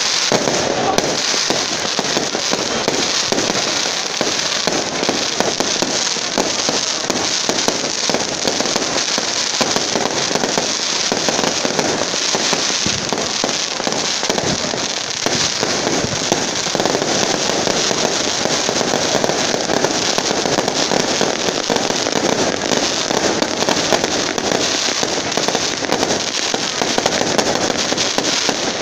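Aerial fireworks bursting overhead in a dense, unbroken crackle of many rapid small pops and bangs, without a pause.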